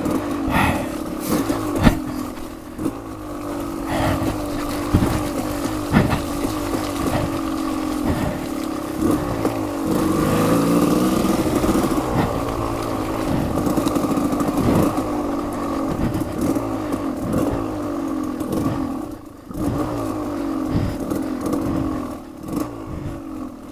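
Off-road dirt bike engine running and revving as it is ridden along a rough trail, its pitch climbing and falling, with a rise about ten seconds in. Frequent sharp knocks and clatter from the bike over the rough ground.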